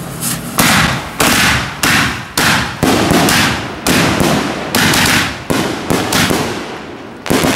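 A multi-shot firework cake firing a rapid volley of about ten loud bangs, roughly one every half second to a second, each trailing off before the next, as its shells burst overhead.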